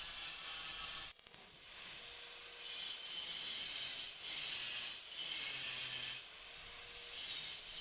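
A hand tool rasping over metal in repeated strokes, roughly one a second, each a hissy scrape with brief pauses between.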